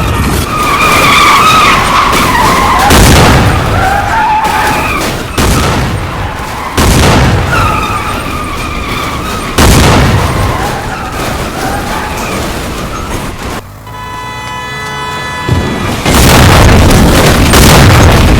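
Bridge-collapse sound effect: tyres screeching with a heavy crash every couple of seconds. Near the end comes a held tone of several pitches, then a loud, sustained crashing rumble.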